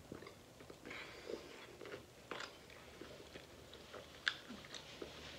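Quiet, close-miked chewing of a mouthful of food, with a few soft crunches and wet mouth clicks scattered through it.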